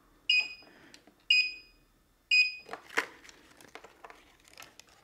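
Gotway RS-19 electric unicycle's built-in warning buzzer giving three short, high beeps about a second apart. A knock and some small clicks follow, from hands on the wheel's handle.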